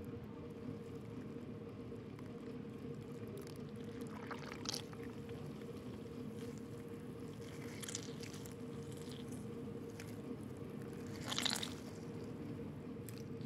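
Bare hands squeezing and mixing grated vegetables soaked in vinegar in a glass bowl: a few short wet squelches, the loudest near the end, over a steady low hum.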